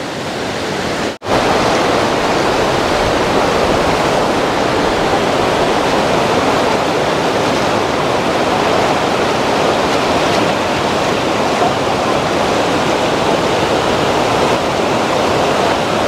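Steady rushing of river rapids pouring over flat rock shelves, a dense even hiss of water. It cuts out for an instant about a second in.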